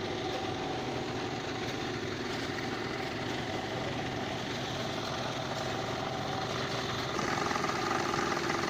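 Engine running steadily, getting a little louder about seven seconds in.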